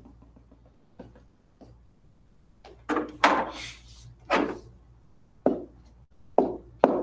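A series of about seven sharp knocks or taps at uneven intervals, starting about three seconds in, each with a short decay.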